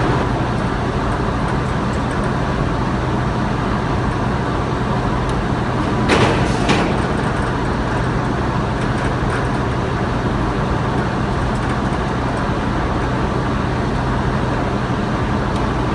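Thermobonded felt production line machinery running: a steady mechanical din with a constant low hum. Two brief knocks come about six seconds in, half a second apart.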